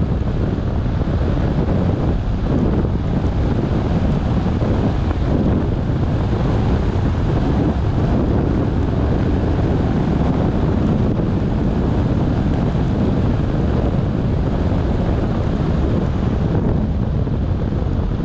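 Steady road noise of a car driving on a rain-wet road: continuous tyre hiss and low wind rumble, with no distinct engine tone.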